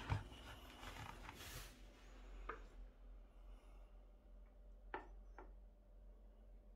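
Light knock of the PVC figure bases being set down on a wooden table, with soft handling rustle for the first second or so. Then mostly near silence, broken by a small click and, about five seconds in, two quick clicks.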